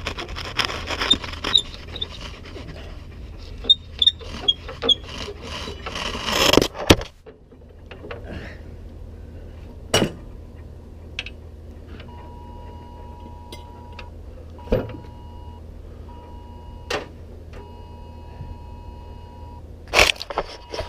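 Metal clinks, rattles and sharp knocks of hands working the steel deck-hanger linkage and pins of a Hustler Raptor zero-turn mower. From about twelve seconds in, a phone's Amber Alert emergency tone sounds: a two-note beep repeating in a long-short-short pattern.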